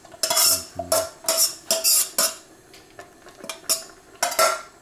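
A utensil scraping grated carrot out of an enamel bowl into a steel pot: about eight quick scrapes, each with a short ringing clink, with a pause about halfway through.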